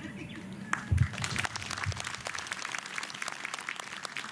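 Audience applauding: scattered hand claps that thicken into steady clapping after about a second, with a single low thump about a second in.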